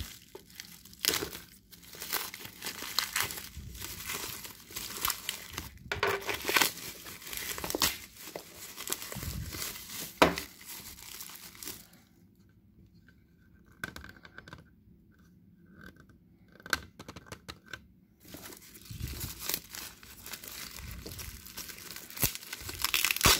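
Thin plastic shop bag crinkling and tearing as it is ripped off a cardboard box, in irregular rustles and sharp rips. It goes quiet for several seconds about halfway through, then picks up again, loudest just before the end.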